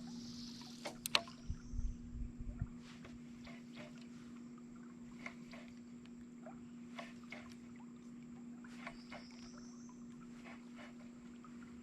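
Faint steady hum of a small boat's electric trolling motor, with a few knocks and low thumps against the hull in the first few seconds and scattered faint clicks.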